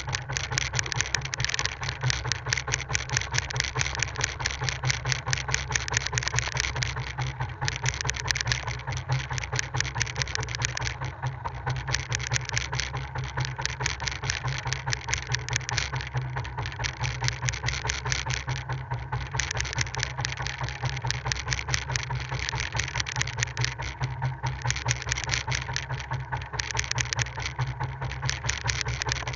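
Small fishing boat's engine running steadily, with an even, regular pulsing beat.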